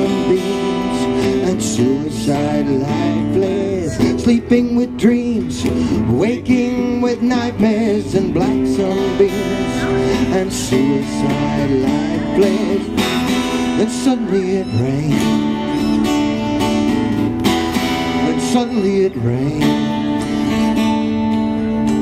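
Two acoustic guitars strumming a country-style song live, with sustained melody notes over the chords.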